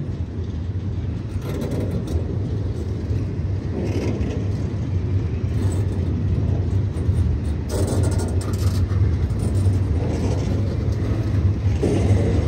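Freight train of welded-rail cars rolling past: a steady low rumble, with brief louder patches every few seconds.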